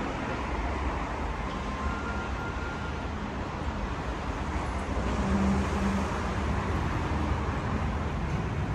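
Steady rumble and hiss of station ambience on a subway platform, with a brief faint tone about two seconds in and another low one about five seconds in.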